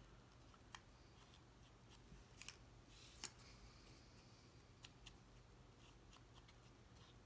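Near silence with a few faint, sharp taps and one short soft rustle about three seconds in: cardstock pieces being handled and their edges inked.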